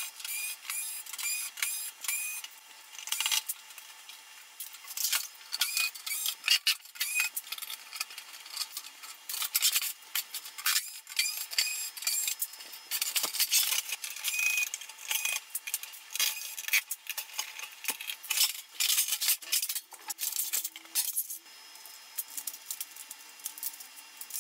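A dense, irregular run of clicks and metallic clinks from a stereo system being taken apart: screws being undone with a cordless screwdriver, and metal and plastic panels and parts being handled.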